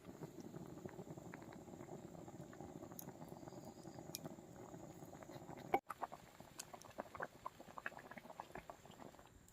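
A pot of vegetable curry bubbling as it simmers, a soft, steady burble. About six seconds in it cuts off abruptly, giving way to scattered light clicks and taps.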